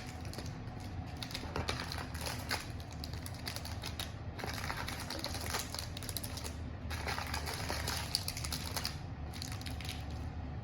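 Cardboard hobby box and card packs being handled: a busy run of small clicks, taps and crinkles.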